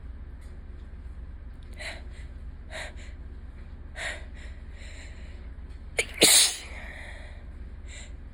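A person's allergy sneeze: three short, sharp in-breaths a second or so apart as it builds, then one loud sneeze about six seconds in.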